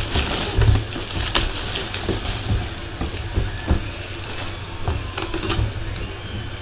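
Plastic shrink wrap crinkling and crackling as it is pulled off a cardboard box.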